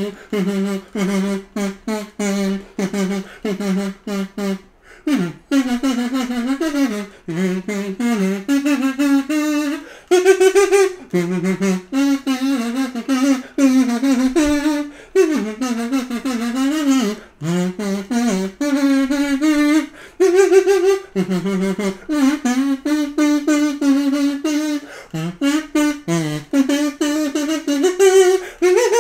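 Kazoo playing a buzzy melody. Short notes jump back and forth between two pitches for the first few seconds, then a flowing tune follows with slides up and down in pitch.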